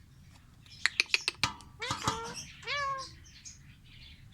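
A quick run of sharp clicks, then a few short meow-like calls from a pet animal, each bending up in pitch and falling away.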